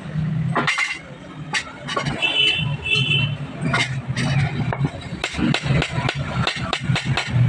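Street traffic with a motor running steadily and two short horn toots, then a fast run of sharp knocks, about four a second, from about five seconds in.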